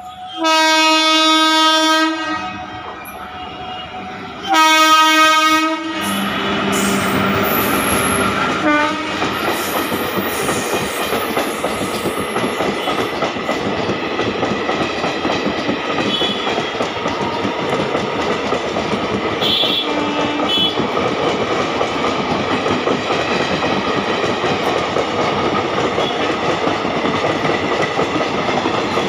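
Indian Railways express train behind an electric locomotive: two loud horn blasts, each over a second long and a few seconds apart, then the train passes at speed with a steady rush of wheel and rail noise and clickety-clack of the coaches.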